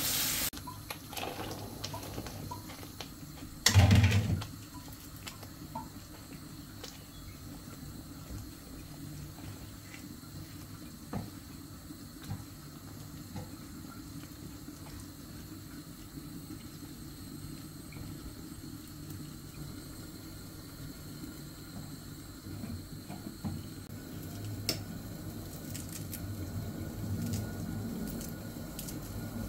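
Thick chickpea curry simmering in a nonstick frying pan and being stirred with a silicone spatula, with small clicks and scrapes and one brief loud thump about four seconds in.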